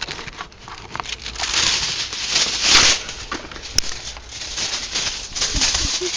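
Foil arcing inside a running microwave oven: a dense crackle of sparks and snaps that swells and fades in waves, loudest about two and a half seconds in.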